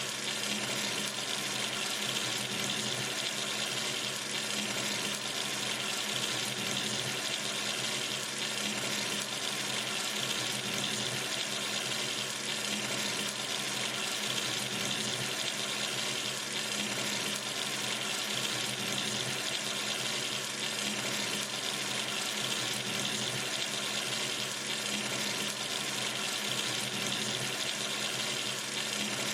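Water running steadily from a sink tap, an even, unchanging rush of water.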